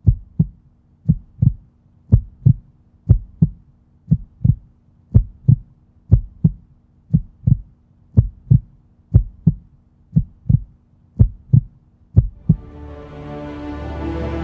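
Heartbeat sound effect: a steady double thump (lub-dub) about once a second, over a faint low drone. Near the end the beats stop and music swells in.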